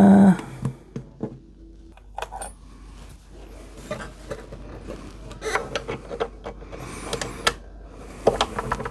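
Irregular small clicks, taps and light metallic rattles of tools and parts being handled on a guitar at a workbench, busiest in the second half.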